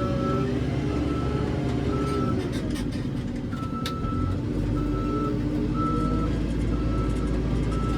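A JCB 3CX backhoe loader's diesel engine running under load, its pitch shifting as it works. A reversing alarm beeps steadily about once a second, and a sharp knock sounds near the middle.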